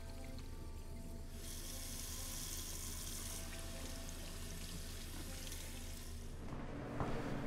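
Restroom sink tap running briefly, a steady hiss of water from about a second and a half in that stops about two seconds later.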